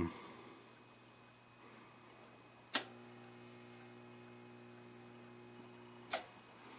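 A switch clicks on and the Admiral 30A12 television's power supply hums steadily while a 5U4GB rectifier tube is tried in it. A second click cuts the hum off about three and a half seconds later.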